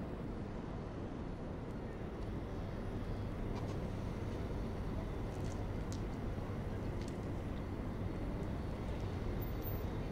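A steady low rumbling ambience with a few faint, scattered clicks.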